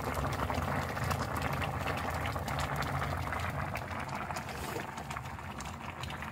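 Thick red cutlassfish stew bubbling at a hard boil in a wide pan: a steady crackling burble that gets a little quieter after about four seconds.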